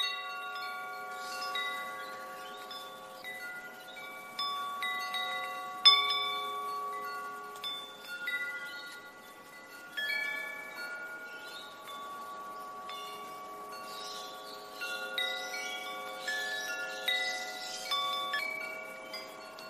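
Chimes ringing: clear bell-like tones struck at irregular moments, each ringing on for several seconds and overlapping the next, with a louder strike about six seconds in.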